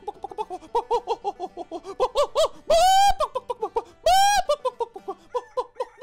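A human voice imitating a chicken: rapid clucking, broken by two long, high squawks near the middle.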